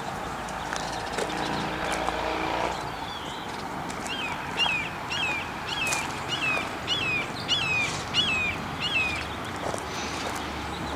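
A hawk calling a run of about ten short, descending notes, roughly two a second. Before the calls, a low droning hum with several steady pitches lasts a couple of seconds.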